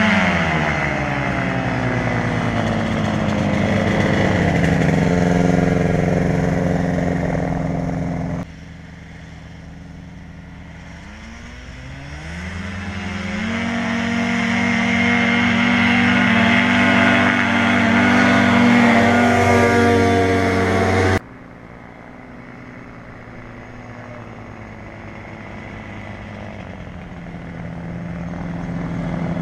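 Engine and propeller of a Star Flight TX-1000 ultralight airplane, heard from the ground in three spliced runs. Over the first several seconds its pitch falls. After a sudden cut it climbs in pitch and holds loud and steady. After a second cut a quieter run grows louder toward the end.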